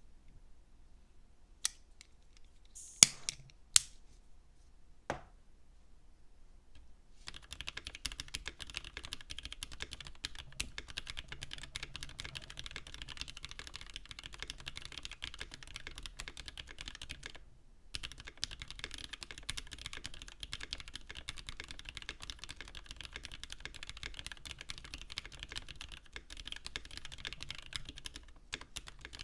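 Typing on a custommk Evo70 mechanical keyboard with Gateron Hippo switches, GMK Laser keycaps, Everglide V2 stabilizers and a silicone-poured case. A few separate keystrokes come first, then about seven seconds in steady fast typing begins, breaking off briefly near the middle.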